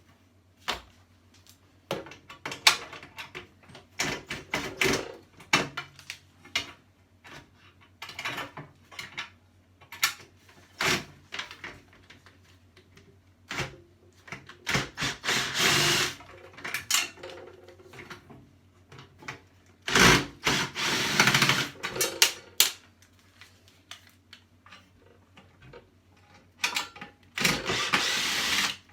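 Clicks, knocks and clatter of tools and parts as a table saw is taken apart, with three short runs of a powered screwdriver removing screws, each a second or two long: about halfway, around two-thirds of the way in, and near the end.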